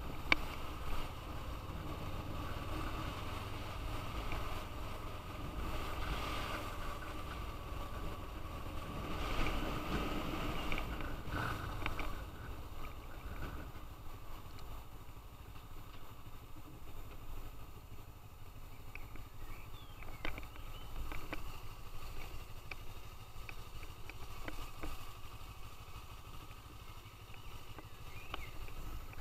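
Motorcycle engine running at low road speed with wind noise on the camera microphone, the engine note easing off after about twelve seconds as the bike slows.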